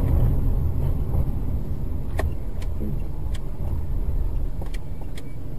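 Steady low rumble of a car driving at road speed, heard inside the cabin, with a few light ticks scattered through it.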